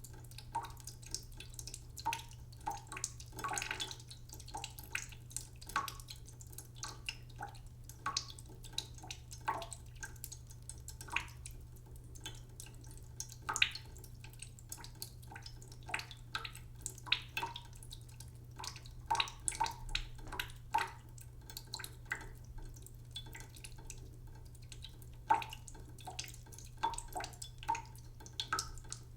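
Cooking pot filling slowly in a sink: the tap's thin stream falls as irregular separate drops and plinks into the water in the pot, a few each second. A steady low hum runs underneath.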